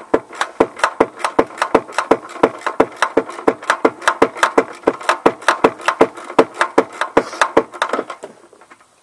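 Ratchet wrench clicking rapidly and evenly, about five clicks a second, as a nut or bolt is run on. The clicks stop shortly before the end.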